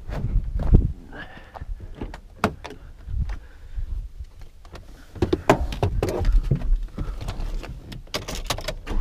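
Pickup truck driver's door being opened and a person climbing into the cab: a string of knocks, clunks and rustles, busiest in the second half.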